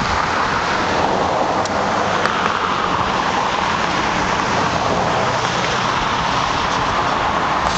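Heavy truck engine running close by: a steady rushing noise with a faint low hum underneath.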